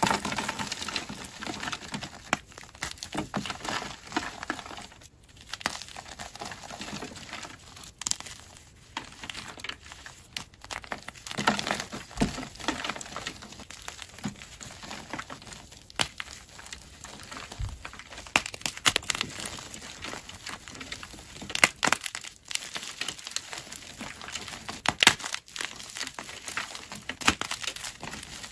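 Chunks of gym chalk crushed and crumbled in a bare hand, giving a run of irregular crackles with sharper snaps now and then as the pieces break and the powder pours out.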